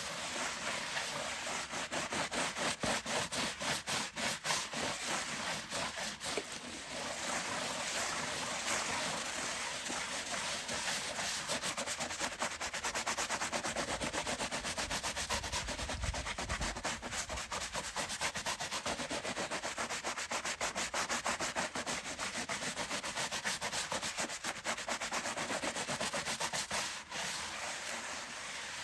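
Stiff brush scrubbing a chair with rapid back-and-forth strokes, a steady rhythmic scratchy rubbing.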